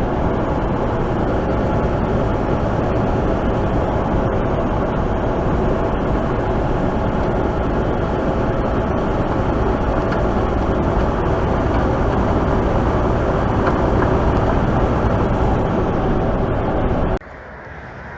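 Mack semi truck on the road: a steady drone of engine and road noise that drops suddenly to a quieter steady hum near the end.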